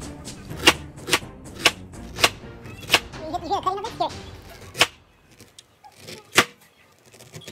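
Kitchen knife chopping a peeled pineapple against a cutting board: a run of five sharp chops about every half second, then two more, spaced further apart.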